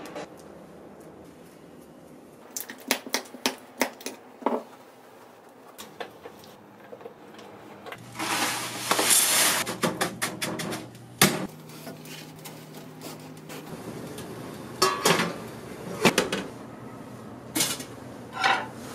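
Kitchen cooking sounds: scattered clinks and knocks of utensils and dishes, and a rustling scrape of coarse salt being spread by hand in a frying pan, with one sharp knock just after it.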